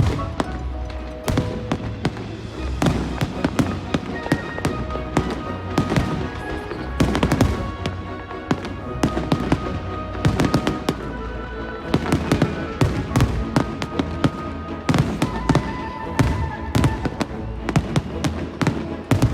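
Fireworks going off in rapid, irregular bangs and crackles, with music playing underneath.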